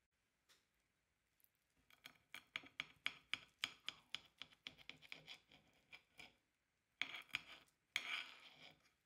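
Table knife sawing through a crisp fried potato fritter topped with cheese and tomato, a quick run of crunchy scrapes about three a second, then two louder scrapes near the end as the cut goes through.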